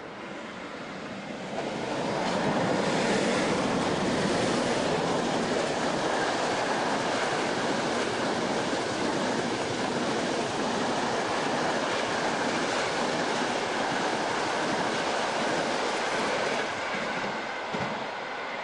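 Electric-hauled passenger train passing: a steady rumble and rush of wheels on rails that builds about a second and a half in and drops away near the end.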